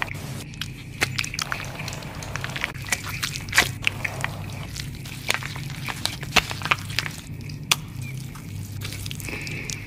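Hands rubbing an oily cleanser over a made-up face close to the microphone: a run of wet, sticky squishes and small clicks of slick skin as stage greasepaint is worked loose, over a steady low hum.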